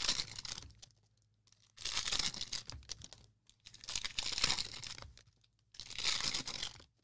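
Cellophane-wrapped football card packs being torn open and crinkled by hand, in four short bursts about a second long each with brief pauses between them.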